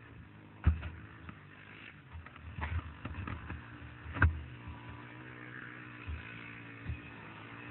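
ATV engine running steadily, with scattered knocks and bumps; the two loudest, sharp thumps come under a second in and about four seconds in.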